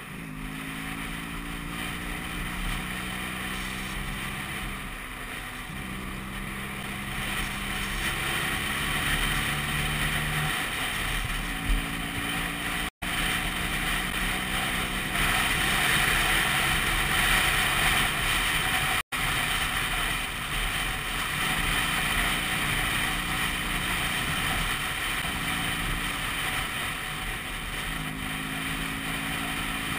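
Vespa PX200's single-cylinder two-stroke engine running under way, its pitch holding and then shifting to a new level several times as road speed changes. Wind rushes over the microphone throughout, loudest around the middle. The sound cuts out for an instant twice.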